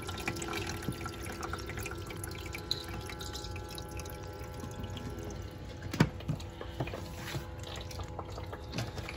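Frigidaire countertop ice maker running at the start of its cycle: water trickles and drips into the ice tray over a steady faint hum from the machine. One sharp click about six seconds in.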